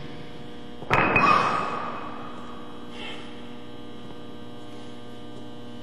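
Steady electrical mains hum in the recording. About a second in, a sharp click is followed by a brief rush of noise that fades within a second.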